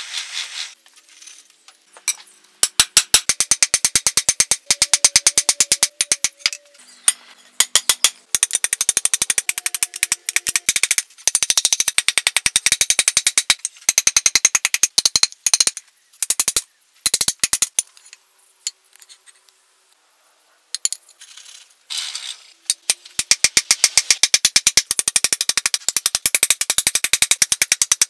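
Hammer striking a red-hot steel strap on an anvil in quick runs of blows, several a second, curling the strap's end into a hinge knuckle. The blows ring out metallically, with a pause of a few seconds after the middle.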